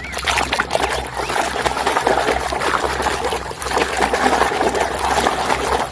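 Water splashing and trickling as muddy toy vehicles are washed by hand in clean water, an irregular run of small splashes.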